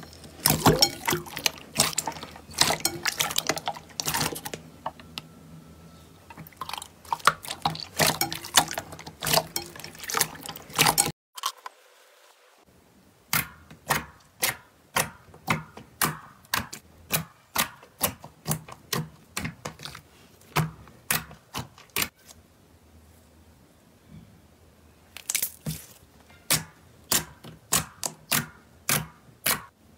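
Hands squishing and poking slime, making sticky wet clicks and pops. The pops are dense and irregular at first; after a brief pause they come about two a second, and they grow denser again near the end.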